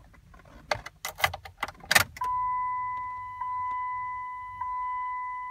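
A replacement key going into a 2005 Dodge Durango's ignition lock and turning, with a burst of sharp clicks and rattles, followed about two seconds in by the dashboard warning chime as the ignition switches on: a pure ding that repeats about every second and a quarter, each ring fading slowly into the next.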